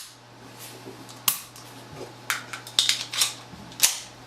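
Sharp metallic clicks and light knocks from a Sig P238 pistol and its grip parts being handled during a grip swap. There is one click about a second in, a quick run of them in the middle and a last one near the end.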